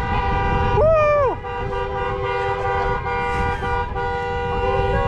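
Several car horns honking together in celebration, their steady tones at different pitches overlapping and held on. About a second in, a voice whoops once.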